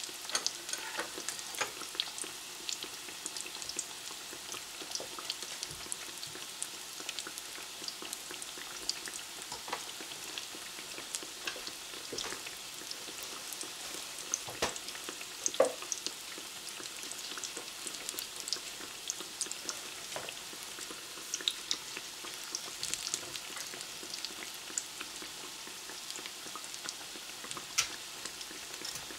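Breaded zucchini slices frying in hot oil: a steady sizzle with scattered crackles and pops, and one louder pop a little past halfway.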